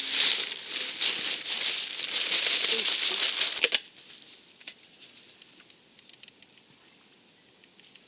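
Dry off-white cement powder pouring from a bag into a mortar mix: a steady hiss with some bag crinkling that stops abruptly a little under four seconds in. After it, only faint scattered ticks.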